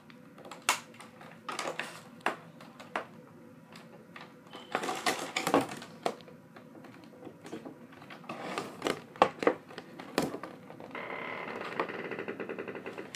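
Plastic card packaging being pried and handled to pop a trading card out: scattered sharp clicks and crinkling, then about two seconds of rapid rattling scraping near the end.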